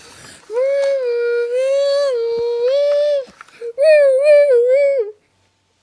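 A child's voice imitating a police siren: a long held note, then a short warbling wail that breaks off about five seconds in.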